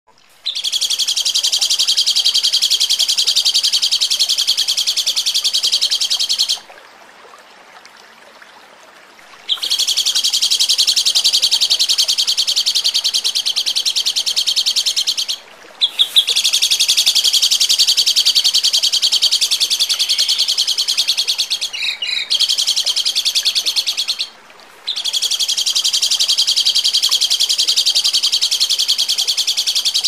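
A songbird singing a sharp, high, rapid-fire trill of densely repeated notes, the 'tembakan' type of song used as masteran for training other songbirds. It comes in four long bursts of about five to eight seconds, with a pause of about three seconds after the first and brief breaks between the others.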